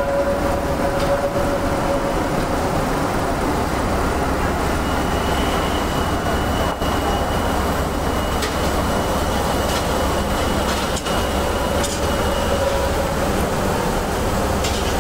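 Steady, loud din of heavy machinery in an iron-bar mill, with a steady hum and a higher whine joining in from about a third of the way in until near the end.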